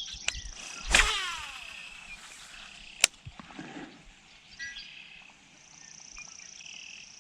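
A fishing reel whirs as a lure is cast, falling in pitch about a second in; a single sharp click follows about two seconds later. A steady high insect buzz runs underneath.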